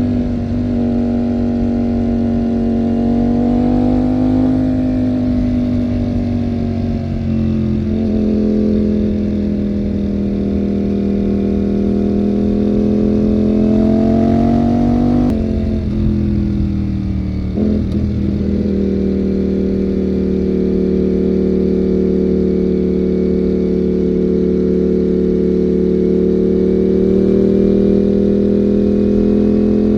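Ducati Panigale V4's 90-degree V4 engine running under way, its pitch rising and falling with the throttle. A few brief breaks where the pitch drops and picks up again, about a quarter and about half way through.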